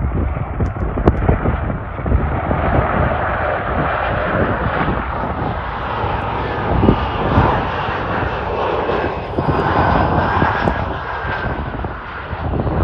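Embraer E175 regional jet on final approach, its two GE CF34 turbofans making a steady jet noise that builds through the middle, with a faint engine whine as it passes, over low gusts of wind on the microphone.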